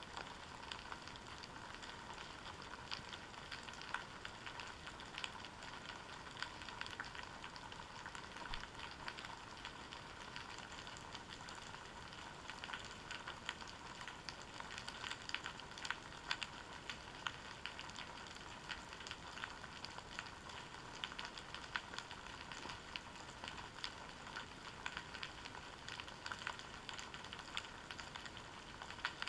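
Steady underwater crackling of dense, fine clicks, recorded through a GoPro camera's waterproof housing resting on a kelp-covered seabed.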